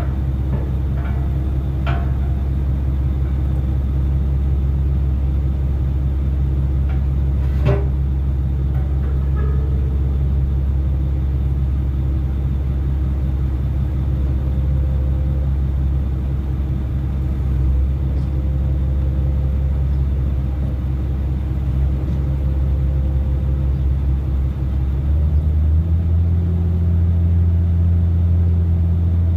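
A vehicle engine running with a steady low rumble, its drone stepping up in pitch about 25 seconds in, with a few faint clicks early on.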